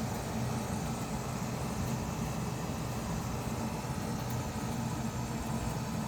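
Steady low mechanical hum over a bed of even noise, with no distinct events.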